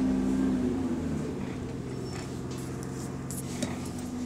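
Bus engine and cooling fan droning, heard from inside the upper deck; the pitch drops about a second in and stays lower as the bus slows for a stop.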